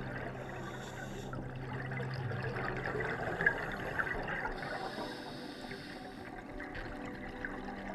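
Underwater rushing and bubbling water heard through a camera housing on a scuba dive, with a low steady hum that stops about two and a half seconds in and a single sharp click a second later.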